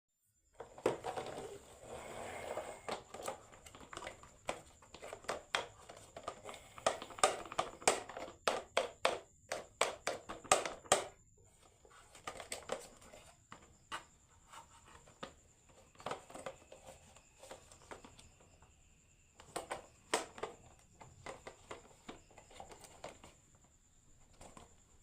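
Marbles rolling and clacking down a wooden HABA marble run: a rolling rumble at first, then a dense run of sharp clicks and knocks that thins out to scattered clicks after about eleven seconds.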